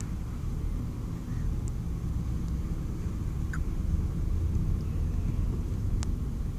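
Steady low engine rumble below decks in a ferry's steel hull, with a single sharp click near the end.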